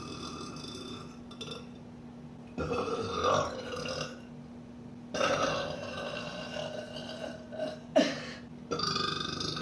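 A woman burping, a series of long, drawn-out burps: one trails off in the first second, another comes about two and a half seconds in, a long one of about three seconds starts around five seconds in with a brief sharp click partway through, and another begins near the end.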